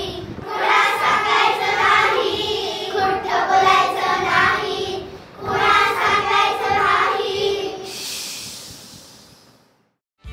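A group of children singing together in unison, in short phrases with brief breaks. The singing stops about seven and a half seconds in, and the sound fades out to silence near the end.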